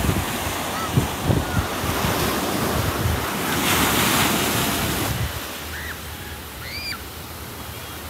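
Ocean surf washing onto sand and rocks, with wind buffeting the microphone in gusts. A wave swells louder about four seconds in, then the surf quietens.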